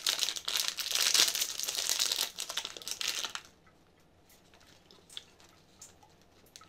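Plastic snack-cake wrapper being torn open and crinkled by hand, a dense crackling for about three and a half seconds that then stops.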